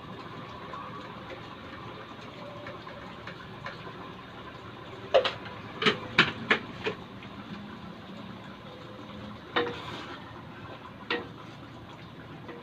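Thick tomato-based pork stew simmering in a metal wok, a steady low bubbling hiss. It is broken by a quick run of five sharp knocks about five seconds in and two more single knocks later.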